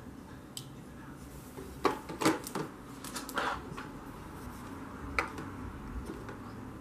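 Light clicks and clacks of a plastic blush palette and makeup brush being handled: a quick cluster about two to three and a half seconds in and a single click about five seconds in.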